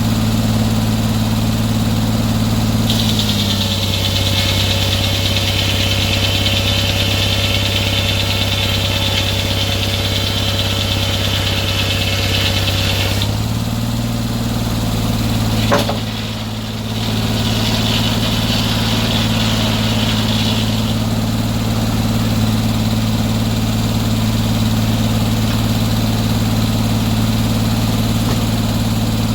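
A sawmill's engine runs steadily. From about three seconds in to about thirteen its pitch sags slightly under load while a high hiss rises over it, then it returns to speed. A single sharp click comes near the middle, and a shorter high hiss follows a few seconds later.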